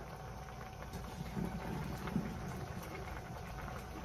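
Cream sauce bubbling in a frying pan at a boil, soft scattered pops over a low steady hum.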